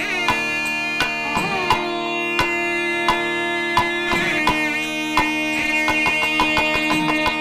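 Nadaswaram, the long double-reed pipe of south Indian temple music, playing a Carnatic melody of long held notes with bending ornaments, accompanied by a thavil barrel drum. The drum strokes are sparse at first and quicken into a rapid run about six seconds in.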